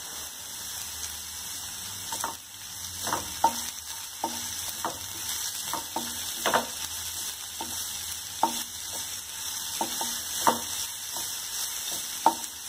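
Vegetables sizzling as they are stir-fried in a kadai over a high gas flame. A spatula knocks and scrapes against the pan irregularly, about once a second, over the steady hiss of the frying.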